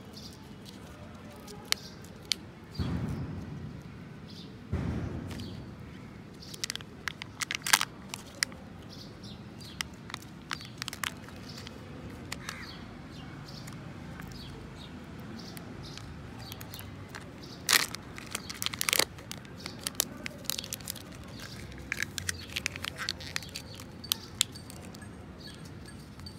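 Kinder Joy egg packaging being unwrapped by hand: the foil seal peeled off a plastic capsule half and a small toy wrapper crinkled and torn open, in scattered sharp clicks and crackles. Two short dull thuds come a few seconds in.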